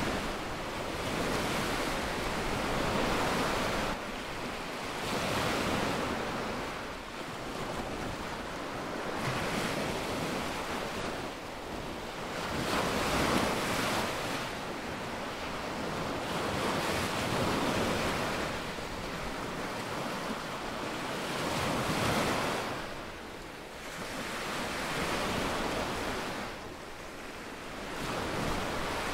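Small waves breaking and washing up a sandy beach, the surf swelling and fading every three to four seconds, with wind noise on the microphone.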